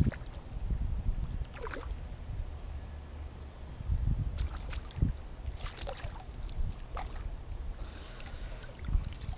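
A hooked peacock bass splashing and thrashing at the water's surface beside the boat, several brief splashes over a steady low rumble.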